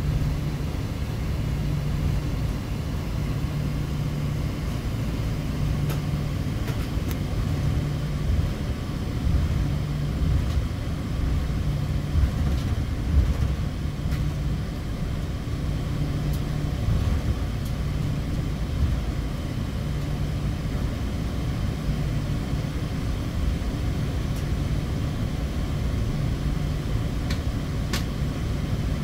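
Cabin noise of a Boeing 777-200 with Rolls-Royce Trent engines taxiing: a steady low drone of engines at low power and wheels on the taxiway, with a low hum that swells and fades every couple of seconds and a few faint clicks.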